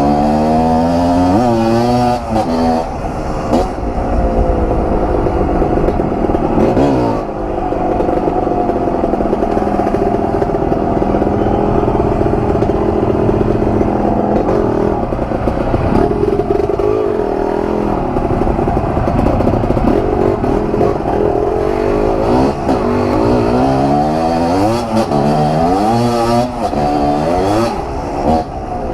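Kawasaki KMX 125 single-cylinder two-stroke dirt bike being ridden: the engine revs up and drops back again and again as it pulls through the gears, with a steadier stretch of cruising in the middle.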